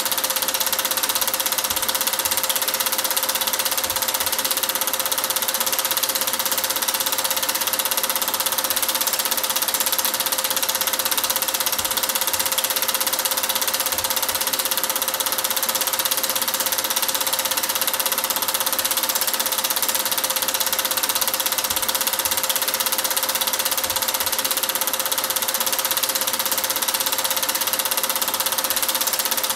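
Cine film projector running steadily: an even mechanical hum with a constant tone and a wide hiss.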